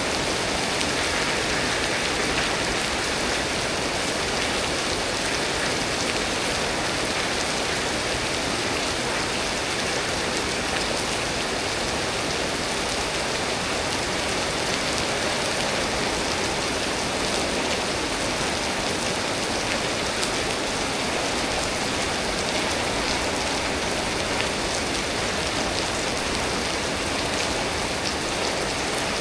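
Steady rain falling from a tropical storm, an even, unbroken hiss of rain on surfaces.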